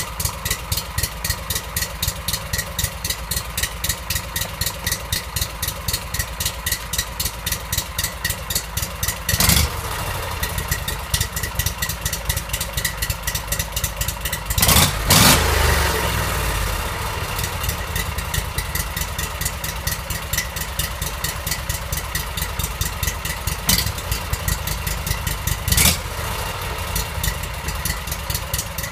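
Freshly rebuilt Briggs & Stratton Vanguard V-twin mud-motor engine, with a performance cam, ported head and gutted stock exhaust, running at idle with an even pulsing beat on its final test run. It is blipped briefly about a third of the way in, revved up for a couple of seconds about halfway through, and blipped twice more near the end.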